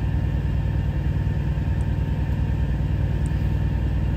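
Diesel engine idling steadily, a constant low rumble with a fast, even pulse, heard inside a semi truck's cab.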